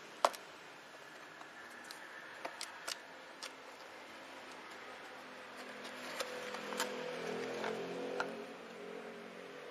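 Cardboard box of brake pads being opened and handled with gloved hands. A sharp click just after the start is followed by scattered taps, then a longer stretch of cardboard rustling and scraping with a few clicks from about six seconds in.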